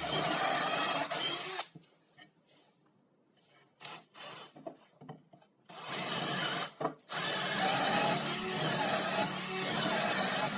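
Wood being worked by hand with an abrasive, sanded or rasped in steady scraping strokes. It pauses for a few seconds with only a few light knocks, then starts again.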